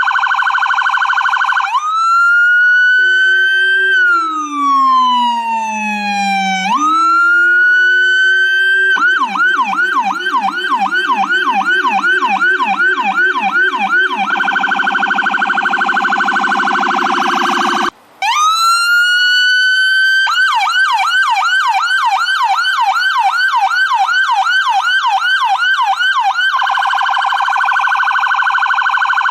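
Electronic ambulance siren cycling through its tones: a very rapid warble, a slow wail rising and falling, then a fast yelp of about two to three sweeps a second, and the rapid warble again. It cuts out briefly about 18 seconds in, restarts with a rising wail, and goes back to the yelp and warble.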